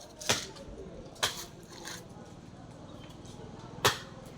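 Three sharp knocks: two about a second apart near the start and one more about two and a half seconds later, over a low background.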